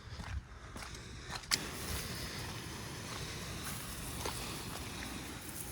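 A sharp click, then a steady hiss of bleach solution spraying from a 12-volt soft-wash pump's hose, over a low steady hum.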